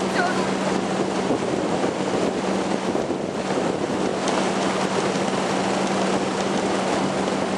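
Motorboat under way at a steady speed: a constant engine drone under wind buffeting the microphone and the rush of water.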